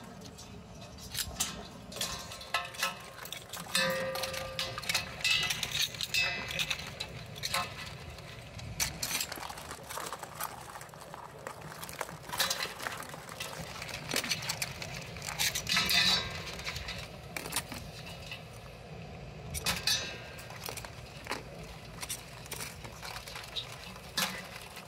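Live blue crabs being handled with metal tongs in a galvanized pot: irregular clicks, scrapes and metallic clinks of shells, claws and tongs against each other and the metal.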